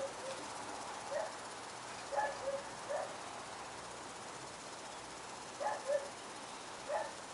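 Short, high-pitched animal calls repeated at irregular intervals, some in quick pairs, over a steady background hiss.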